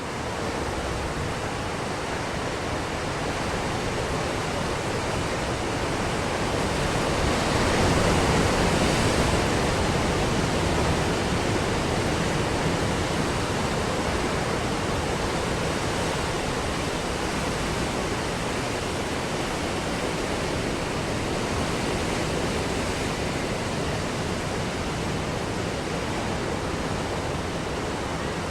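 Ocean surf on a beach: a continuous wash of breaking waves, with one bigger wave swelling up and rolling through about a third of the way in before settling back to a steady rush.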